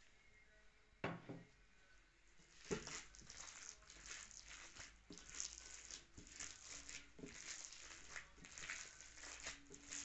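Kitchen food-preparation noise: a single knock about a second in, then a long run of quick, irregular crackling and patting.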